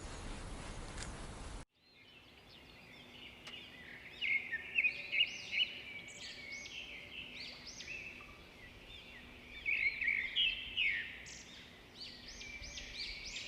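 A rushing noise that cuts off abruptly after a second and a half, then songbirds singing: a busy run of quick, high, chirping notes, loudest about four to six seconds in and again around ten seconds.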